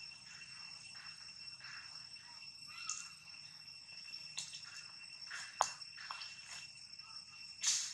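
Steady high-pitched insect drone, with a few short sharp clicks and rustles over it, the loudest about five and a half seconds in and just before the end.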